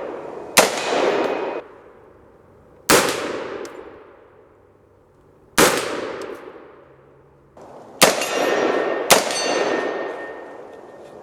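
Five rifle shots fired at scrap steel targets, a few seconds apart with the last two close together. Each shot is followed by the ringing clang of the struck steel, which dies away over about a second.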